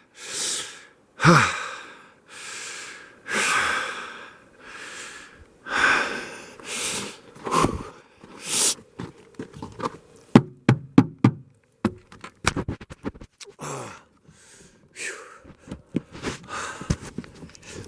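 A person breathing hard, loud breaths about once a second. Partway through comes a quick run of sharp knocks and clicks.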